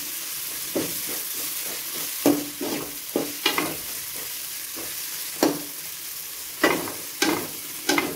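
Chopped onion, tomato and capsicum sizzling in oil in an aluminium kadai. A metal slotted spatula stirs and scrapes through them, knocking against the pan at irregular moments, about eight times.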